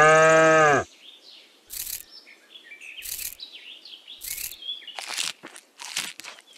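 A cow's moo, falling in pitch as it ends about a second in. Then quieter bird chirps and a series of light taps and clicks.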